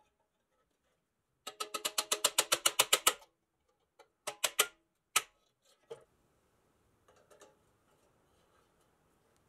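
Hammer striking a pin punch held against the rusted pressed-steel cab of a 1957 Tonka toy truck, driving out a pin: a quick run of about a dozen ringing metallic taps, then a few more spaced single taps.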